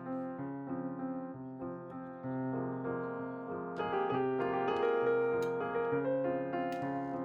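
Background piano music, a gentle melody of held notes, with a few faint clicks in its second half.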